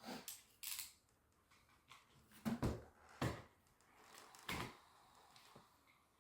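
Hand work on ceiling drywall around an old light fixture: about five short knocks and scrapes as the cut drywall is poked and pried out, the loudest a pair about two and a half and three and a quarter seconds in.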